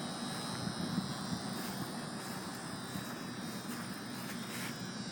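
Steady background noise with a faint low hum running under it, with no distinct events.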